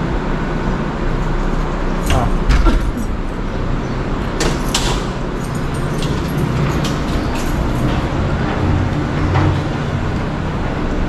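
Steady low rumble of a moving vehicle, with a few sharp clicks and knocks about two seconds in and again about four and a half seconds in.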